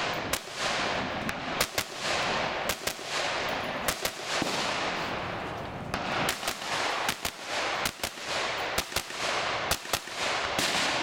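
Semi-automatic rifle firing repeatedly, mostly in quick pairs of shots about a fifth of a second apart, each shot trailing off in an echo.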